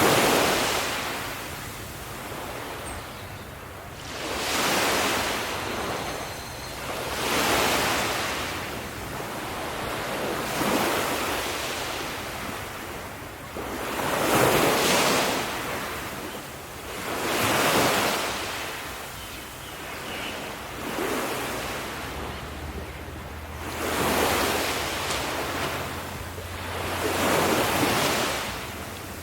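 Ocean waves crashing onto the shore, a surge of surf swelling and washing back about every three seconds.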